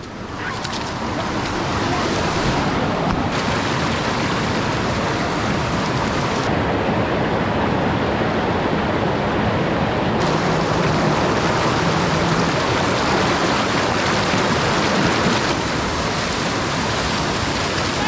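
Mountain river rushing steadily over rocks and rapids. The hiss of the water shifts abruptly in brightness a few times.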